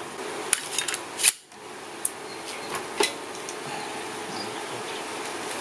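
A few sharp clicks in the first second and a half, the loudest about 1.3 seconds in, from a pneumatic fastening gun shooting pins through carpet into a boat-trailer bunk board. Then a steady low hiss with a couple of faint ticks.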